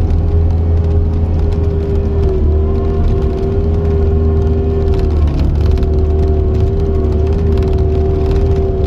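Cat 279C compact track loader running steadily, heard from the cab: a deep diesel hum with a high, steady hydraulic whine on top that dips briefly about five seconds in.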